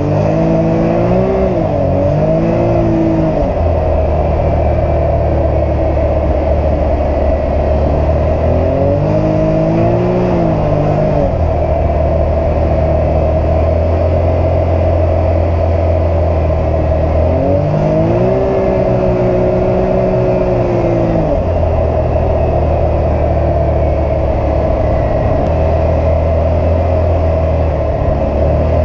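Can-Am Maverick X3 XRC Turbo RR's turbocharged three-cylinder engine under way, heard from inside the fully enclosed cab. The revs climb and fall several times as the throttle is worked, with a steady low drone in between.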